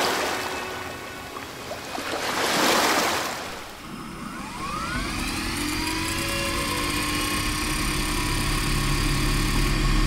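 Electronic soundtrack build-up: two swelling whooshes, then a low drone with tones gliding upward, getting gradually louder.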